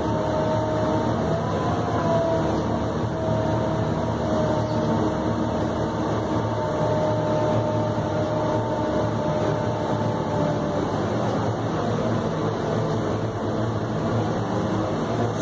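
New Holland RG140B motor grader's diesel engine running steadily, heard from inside the cab. Over it is a wavering whine that fades out about ten seconds in.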